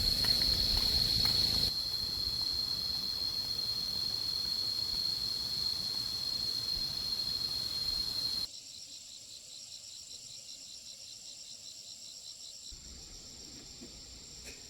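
Insects calling in a steady, high, shrill drone. About two seconds in it gets quieter. Past halfway it cuts abruptly to a softer insect call that pulses about five times a second.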